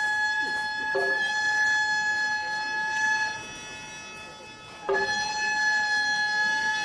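Gagaku accompaniment for bugaku: a wind instrument holds a long steady note, pauses for about a second and a half, then comes back in. Sharp percussion strikes land about a second in and again as the note returns.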